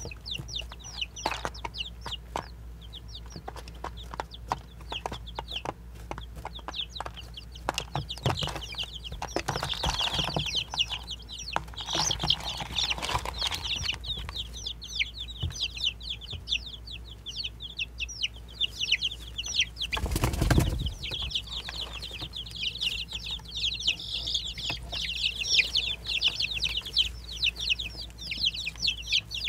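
A group of baby chicks peeping on and off, many short high falling cheeps, busiest about ten seconds in and again near the end. A brief rustling burst comes about two-thirds of the way through.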